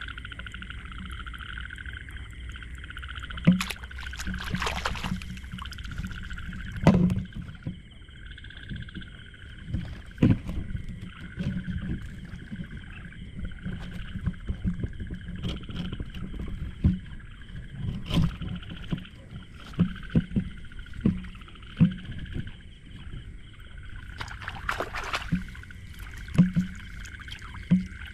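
A steady chorus of calling frogs at night, with irregular close knocks and thumps throughout; the sharpest come about 3.5 and 7 seconds in and again near the end.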